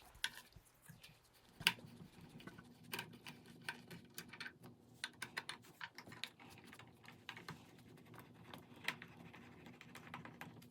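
Faint, irregular clicks and light knocks of hands handling parts as a wooden spacer is taken off an AVL dobby loom's cloth beam.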